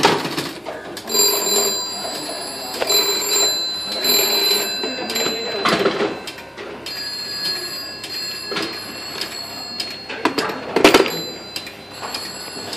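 Telephone bell ringing in long bursts with short pauses, on a line switched by an old electromechanical automatic exchange. A few sharp clicks from the exchange's relays and selectors come between the rings.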